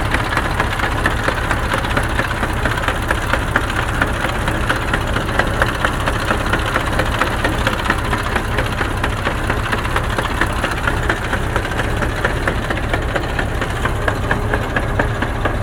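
KAMAZ truck gearbox knocking over the running diesel engine, a rapid train of knocks in low-range reverse. The owner places the knocks in the gearbox itself, not the axle reduction gears.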